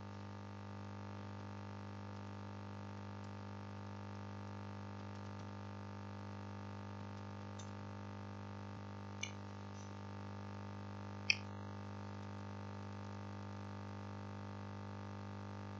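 Steady low electrical hum from the recording chain, with two short clicks about nine and eleven seconds in, the second louder.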